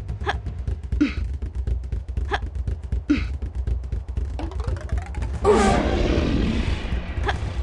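A looped comic sound effect: a steady deep beat under sharp hits and short vocal-like sounds. Near the end a rising swoop leads into a loud, noisy burst lasting about a second.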